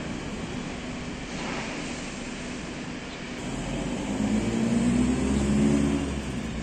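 An engine rumbles over steady background noise. It grows louder about three and a half seconds in and eases off near the end.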